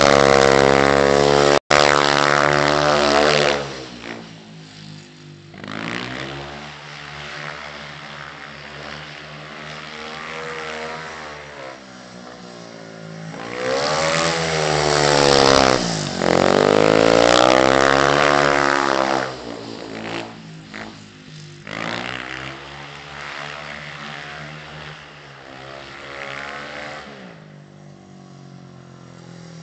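A speedway bike's 500cc single-cylinder engine lapping the track. It is loud and its pitch rises and falls as it passes near the start and again about 14 to 19 seconds in, with a smaller swell around 22 to 27 seconds, and it drops to a distant drone in between.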